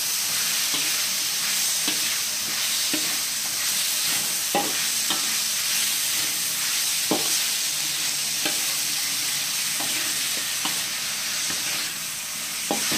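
Cubed beef and spices sizzling in a wok while a metal spatula stirs them. A steady frying hiss runs under irregular scrapes and taps of the spatula against the pan.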